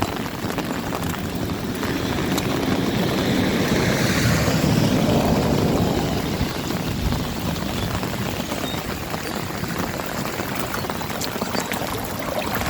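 A vehicle passing on a wet road, its sound swelling to a peak about four seconds in and then fading away, over steady rain.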